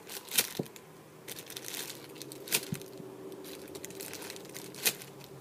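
Plastic packaging of a squishy toy crinkling as it is handled, with three sharp crackles a couple of seconds apart and smaller rustles between, over a faint steady hum.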